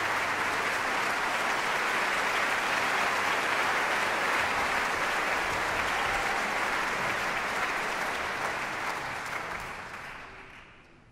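Large concert-hall audience applauding, the clapping thinning out and dying away over the last three seconds.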